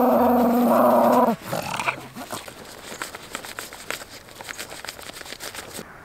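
A small Maltese dog gives a long, steady growling grumble that cuts off about a second in. Light rustling and scattered ticks on the tent fabric follow.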